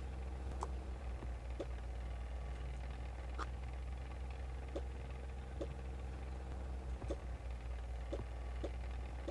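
A steady low hum with faint, scattered light clicks and taps, like small objects being handled.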